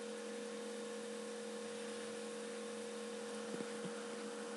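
Steady electrical hum with a light hiss, two low tones held without change, with a few faint ticks about three and a half seconds in.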